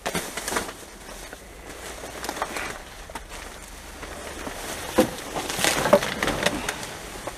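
Plastic rubbish bags and loose trash in a dumpster crinkling and rustling as they are pushed and pulled about by hand. There are a couple of sharper clacks past the middle.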